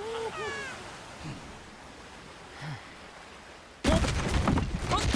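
A brief spoken line, then quiet. About four seconds in, a sudden loud rattling clatter of wooden barrels being shaken from inside starts, mixed with shouting voices.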